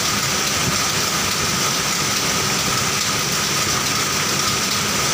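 Steady hiss and whir of running machinery in a knitting workshop, even in level throughout, with two constant whines on top, one mid-pitched and one high.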